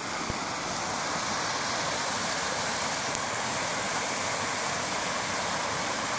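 Small bush creek rushing steadily over logs and rocks in little cascades.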